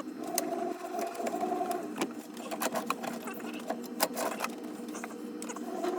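Forstner bit boring into wet, green wood under power. A motor runs steadily, with irregular clicks and scrapes as the bit tears the soggy fibres instead of cutting them cleanly.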